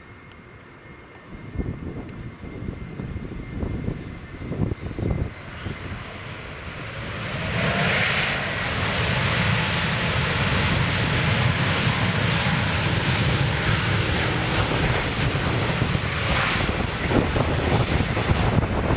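Airbus A321 airliner landing. Gusty wind buffets the microphone for the first few seconds, then the jet noise swells about seven seconds in and stays loud and steady.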